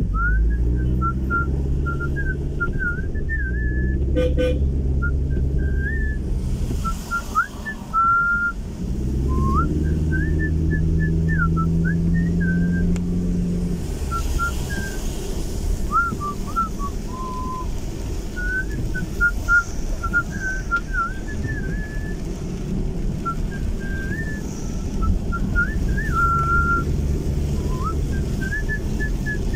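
A person whistling a wandering tune in short phrases of gliding notes, over the steady low hum of the car's engine.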